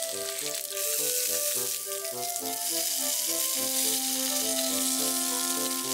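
Cubes of thick-fried tofu and sliced shiitake sizzling in a frying pan, with a steady hiss that grows louder just under a second in. Soft background music plays a melody under it.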